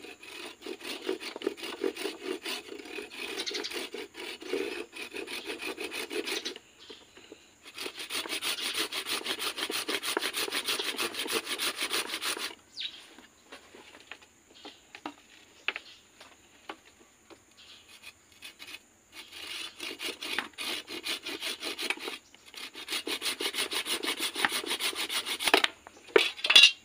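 Hand saw cutting through a green water jasmine (anting putri) stem on a wooden block, in several bouts of fast back-and-forth strokes with short pauses between. A sharp knock near the end is the loudest sound.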